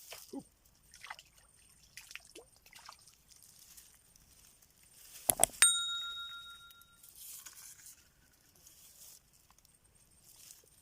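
Light rustling and handling noises, with one sharp metallic clink about five seconds in that rings on briefly with a clear high ring.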